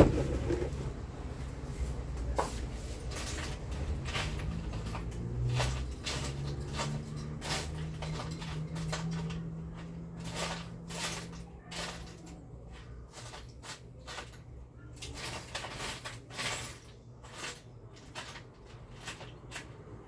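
Irregular light clicks and knocks of small fan parts and a screw being handled while a small, long screw is fitted through a drilled fan part, the clicks coming more often in the second half.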